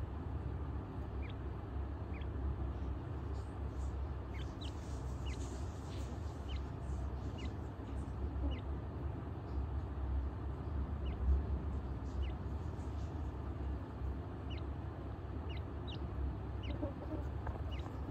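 Teetar (francolin) chicks peeping: short, high chirps at irregular intervals, roughly one a second and sometimes two close together, over a steady low hum.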